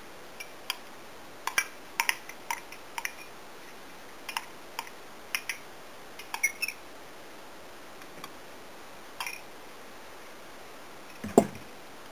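Scattered small, sharp clicks and taps of a container and utensils being handled over a mixing bowl, then one louder knock near the end as the electric hand mixer is taken hold of against the bowl.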